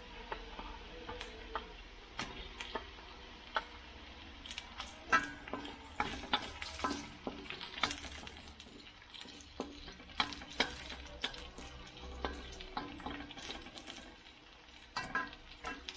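Carrot slices, onion and garlic sizzling in oil in a stainless steel wok, stirred with a wooden spatula that scrapes and taps irregularly against the pan.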